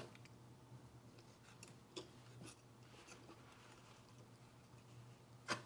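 Near silence with a few faint clicks and taps of small tools handling a replacement capacitor and its leads on the workbench, the sharpest click near the end, over a faint steady low hum.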